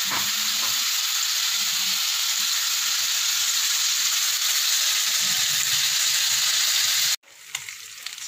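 Marinated chicken pieces frying in oil in a nonstick kadhai, a loud, steady sizzling hiss. About seven seconds in it cuts off abruptly and continues more quietly.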